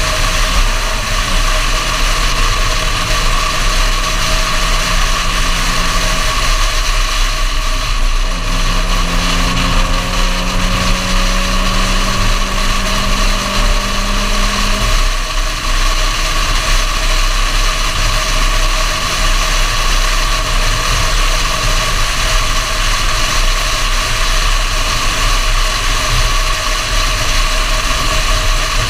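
Suzuki Swift's 1.3-litre G13B four-cylinder engine running under way, with heavy wind and road noise. The engine note rises slightly for several seconds about a third of the way in, then settles lower again.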